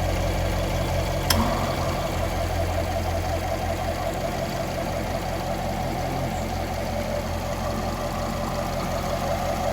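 Car engine idling steadily with the air-conditioning compressor switched on, and a single sharp click about a second in.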